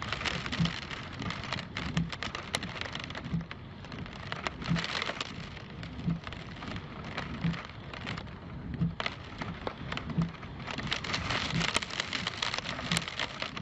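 Hurricane wind and heavy rain, gusting and swelling louder near the end, with rain striking the microphone as sharp irregular clicks. Underneath, a short low pulse repeats about every one and a half seconds.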